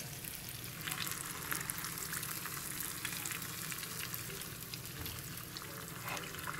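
Battered walleye and crappie pieces frying in hot oil in a pan: a steady sizzle full of fine crackling pops.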